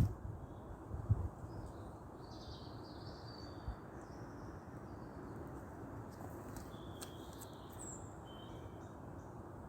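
Faint bird chirps and short calls in two loose clusters, over a steady low background of outdoor noise.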